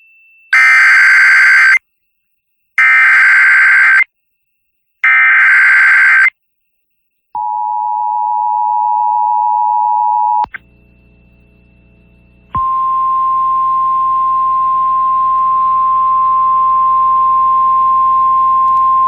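Emergency Alert System tones off a radio broadcast: three short screeching bursts of SAME header data, then the two-tone attention signal for about three seconds. After a brief low hum, a steady single-pitch warning tone sounds, heralding a new flash flood warning.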